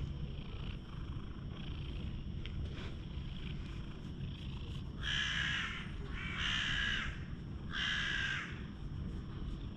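A crow cawing three times, each a harsh call just under a second long, about a second apart, over a steady low rumble.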